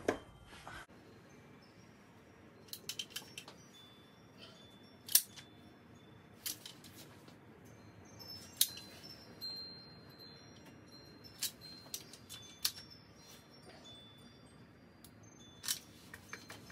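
Caulk gun clicking as its trigger is squeezed to push out construction adhesive: sharp clicks spaced a second or several apart, some with a brief metallic ring.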